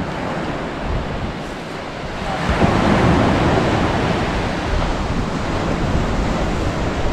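Surf breaking and washing up a pebble beach, a steady wash that swells louder as a wave comes in about two and a half seconds in.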